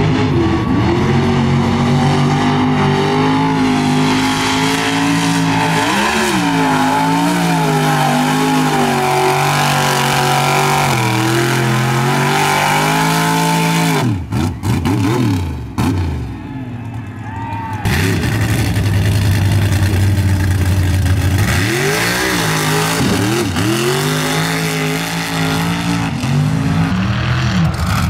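Mega mud truck engine revving hard and running at high rpm, its pitch rising and falling with the throttle. About halfway through it briefly drops off, then comes back with a few quick blips before running hard again.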